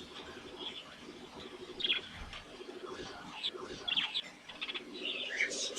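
Budgerigars chirping and chattering: short, sharp chirps at scattered moments, the loudest a little before two seconds in and again around four seconds in, over a steady low chatter.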